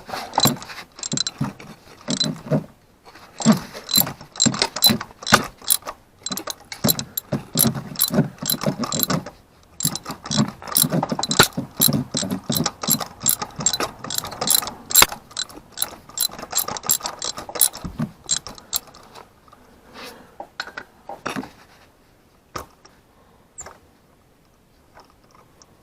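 Hand ratchet clicking in rapid runs as it is swung back and forth, turning a fastener during spark plug work. It stops about 19 seconds in, leaving only a few scattered clicks.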